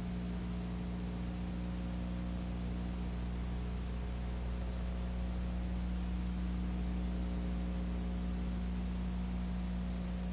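Steady electrical mains hum with a layer of hiss on an analog videotape recording, with no program sound.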